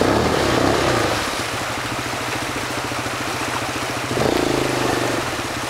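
Quad bike (ATV) engine running at low speed, getting louder for about a second near the start and again about four seconds in.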